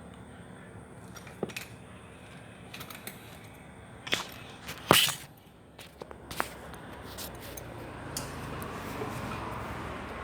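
A few sharp clicks and taps, the loudest about five seconds in, over a steady low background hum.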